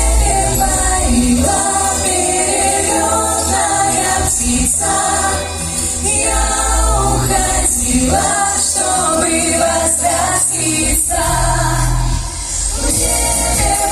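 Vocal ensemble singing held notes in harmony over an instrumental backing with a bass line.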